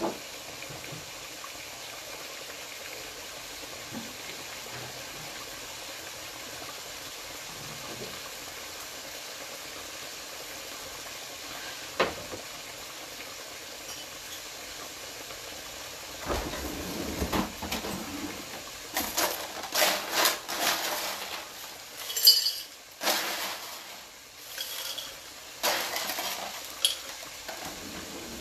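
Ground beef frying in a skillet with a steady sizzle, one sharp click near the middle. From just past halfway, irregular clattering and clinking of dishes and glassware comes in over the sizzle.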